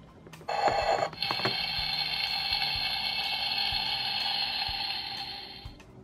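Minnie Mouse Bowtastic toy kitchen's electronic stove sound effect from its small built-in speaker: a short electronic tone about half a second in, then a steady sizzling hiss for about four seconds that fades out near the end.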